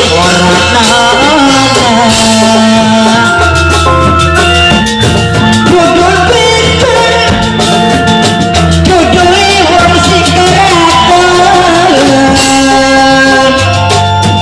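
Loud music with a singer: a wavering, ornamented vocal line over drum strokes and a bass that holds each note for a second or so.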